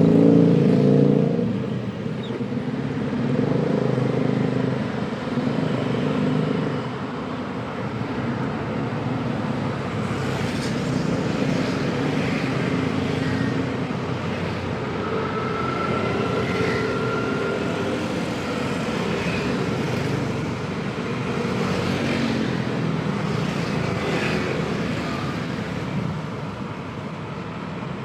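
Busy street traffic: a continuous mix of vehicle engines running and passing, loudest in the first couple of seconds, then a steady rumble.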